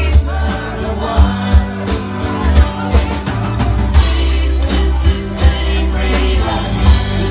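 Live band playing a rock song, drums hitting about twice a second over a heavy bass line.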